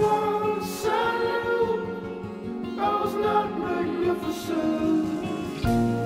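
Background music of held, choir-like singing voices, the chord changing about a second in and again near three seconds.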